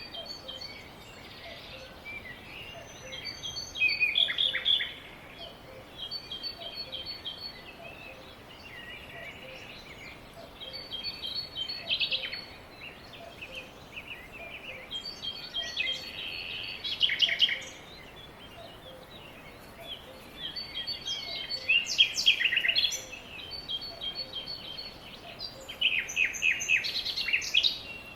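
Birds singing: repeated short chirping phrases, with louder bursts of song every few seconds over a steady faint background.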